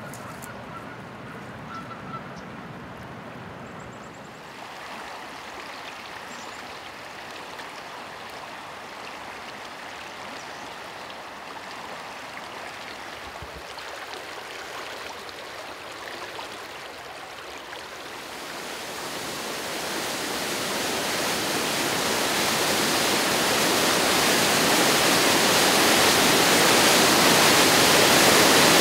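Flowing river water, a steady rush that swells over the last ten seconds into the heavy rush of white water pouring over a ledge.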